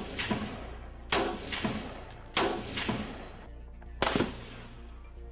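Ohio Ordnance Works M240-SLR, a semi-automatic belt-fed 7.62×51 rifle, firing single shots: three sharp reports about one and a half seconds apart, each followed by a softer report about half a second later. Background music plays underneath.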